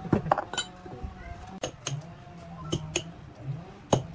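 A hammer striking the laminated steel stator core of an electric fan motor while the old copper windings are knocked out: about eight sharp metallic clinks, irregularly spaced, some with a brief ring.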